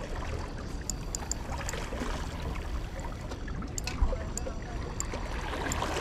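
Seawater lapping and washing against shoreline rocks, with a few scattered light clicks.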